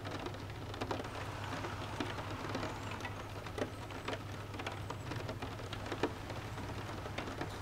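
Steady rain falling, with scattered drips and drops ticking on hard surfaces, over a steady low hum.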